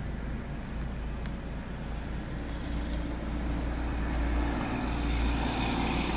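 Steady low rumble of vehicle engines and traffic heard from inside a car. A hiss grows louder from about two and a half seconds in.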